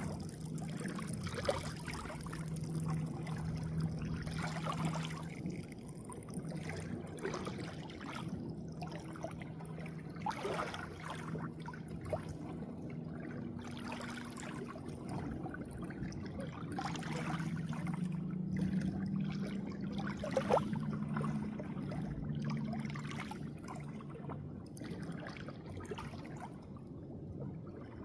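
Water trickling and splashing continuously, with frequent small splashes and a low, wavering hum underneath.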